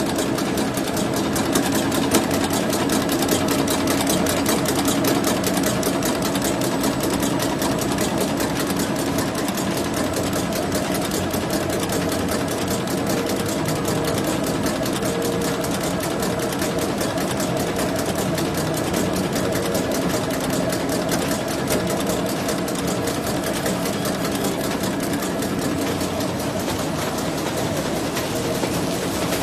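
CY-B450 sharp-bottom paper bag making machine running at production speed: a rapid, even mechanical clatter that holds steady throughout.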